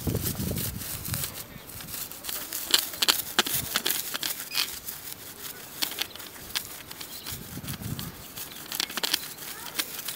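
Dry grass and weed stalks crackling and rustling in quick, irregular clicks as a metal detector's search coil is swept through them close to the ground.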